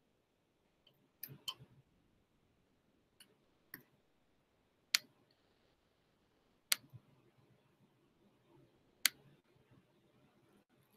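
Computer mouse clicking: about seven sharp single clicks at irregular gaps of one to two seconds, over faint room noise.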